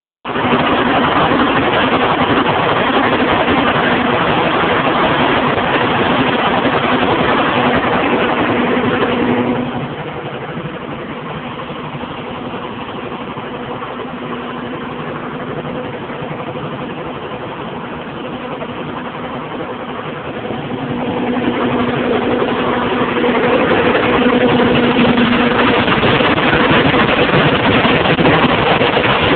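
John Deere 7220's 6.8-litre PowerTech six-cylinder diesel running with a misfire, or skip. It is louder for about the first ten seconds, quieter in the middle, and louder again from about twenty seconds on. The misfire was later traced to a faulty injection pump, after the injectors and compression had tested fine.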